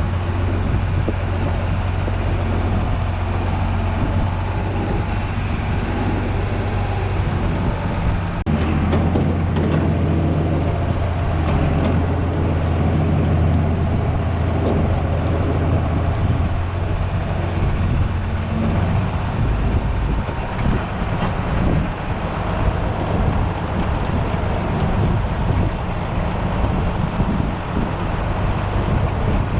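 Farm machinery running steadily with a low, droning hum; the tone shifts about eight seconds in and again near twenty seconds.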